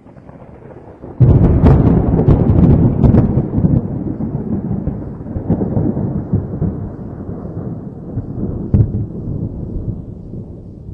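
Thunder: a low rumble breaks into a sudden loud crack about a second in, crackles for a couple of seconds, then rolls on in a long rumble that slowly fades, with one more sharp crack near the end.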